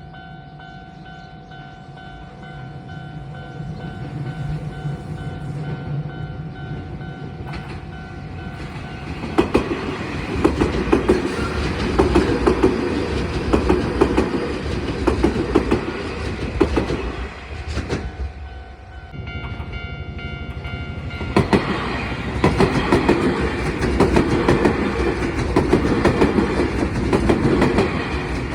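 Level-crossing warning bell sounding steadily, then a Keio 1000 series electric train passes over the crossing with fast rhythmic wheel clatter, about nine seconds in. After a brief lull a second train passes with the same clatter.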